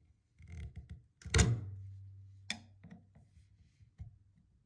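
Flathead screwdriver tip working against a faucet's aerator insert to turn it loose: light scraping, then a loud thunk about a second and a half in with a low hum fading after it, and a sharp click about a second later.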